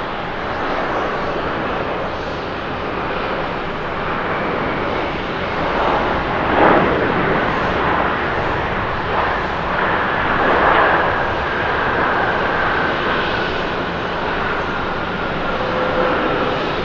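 Boeing 787-9's Rolls-Royce Trent 1000 turbofans during the landing rollout: a steady jet rumble that swells twice in the middle, then a high whine slowly falling in pitch as the engines wind down.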